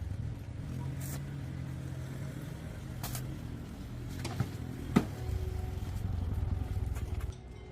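A low mechanical hum with a sharp click about five seconds in. After the click the hum is louder, and it cuts off suddenly near the end.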